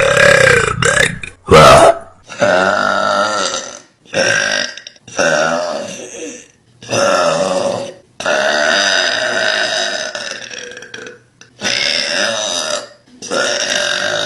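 A young woman burping loudly, about nine long, drawn-out burps one after another with short gaps between them. The longest, near the middle, lasts about three seconds.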